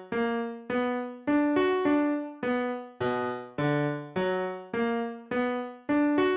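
Background music: a keyboard playing a slow melody of struck notes, a little under two a second, each fading away.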